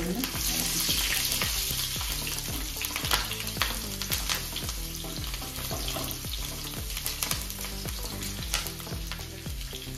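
Chopped garlic, ginger and green chillies sizzling in hot oil in a non-stick frying pan. A wooden spatula stirs them, with short scrapes and taps against the pan. The sizzle is loudest in the first couple of seconds.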